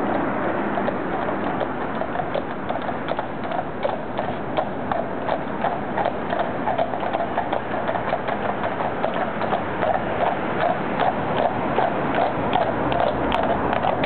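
Hooves of a pair of grey carriage horses clip-clopping on the road as the horse-drawn carriage approaches, over steady background noise. The hoof strikes grow more frequent and louder as it draws near.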